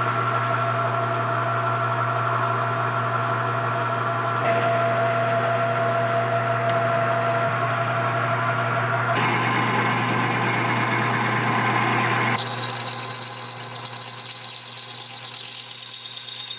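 Metal lathe running steadily while a drill held in the tailstock cuts into a spinning bronze bar. The sound changes abruptly three times, and a high-pitched whine joins in for the last few seconds.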